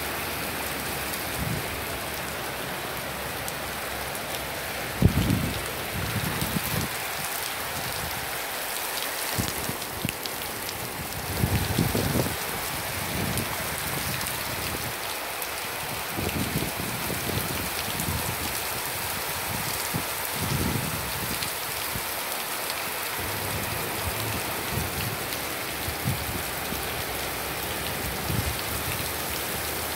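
Heavy rain falling steadily, an even hiss of rain on the ground, road and roofs. A few low rumbling surges come and go over it, the loudest about five seconds in and again around twelve seconds.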